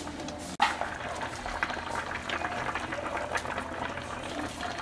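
Korean spicy fish stew (maeuntang) boiling in an enamelled cast-iron pot: a steady crackle of many small bubbles. A single sharp click about half a second in.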